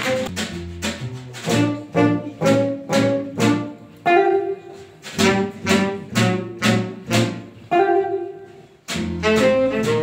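Instrumental music: pitched chords and bass notes struck in a steady rhythm, about two a second, with no singing.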